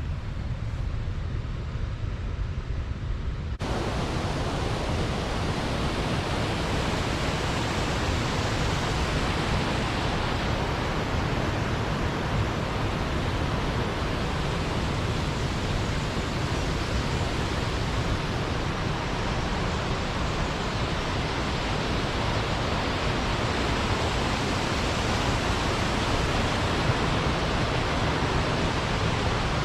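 Steady rush of river water pouring over a small weir. About three and a half seconds in it suddenly becomes fuller and brighter, then stays even.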